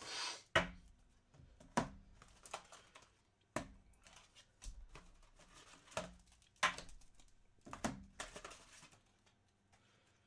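Scattered sharp clicks and knocks, one to two seconds apart, with some rustling: small handling noises near the microphone.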